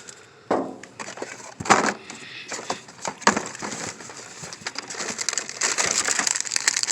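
Rummaging through dumpster contents: packaging crinkling and rustling, with a few sharp knocks in the first half and denser crinkling toward the end.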